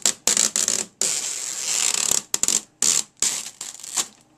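Clear plastic protective film crinkling and crackling as it is peeled off a projector's front, in several rustling bursts with a longer stretch about a second in, then dying away near the end.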